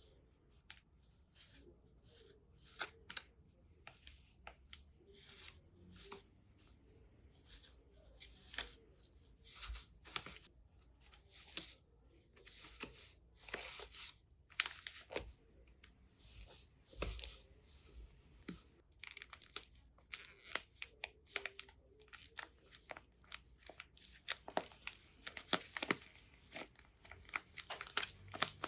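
Paper being handled, crinkling, rustling and tearing in many short, irregular bursts, growing busier near the end.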